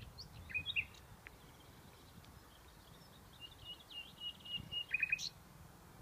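Nightingale singing: a short phrase about half a second in, then a longer phrase of rapid repeated notes from about three and a half seconds in, ending in a few loud notes near five seconds. A steady low rumble of background noise lies underneath.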